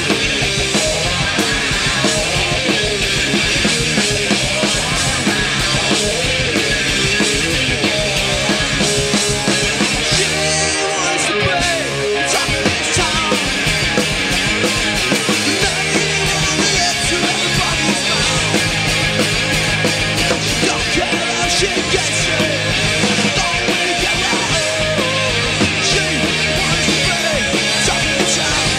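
Live band playing an instrumental passage on electric guitars, bass and drums. About ten seconds in the low end drops away for a couple of seconds, then the full band comes back in.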